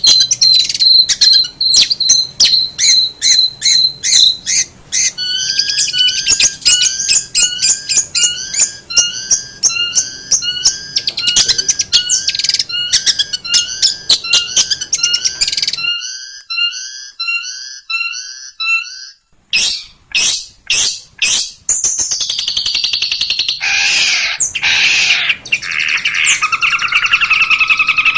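Long-tailed shrike (cendet) singing: rapid runs of sharp repeated notes and short phrases repeated over and over. About two-thirds of the way through, the song turns to a harsher, scratchier chatter.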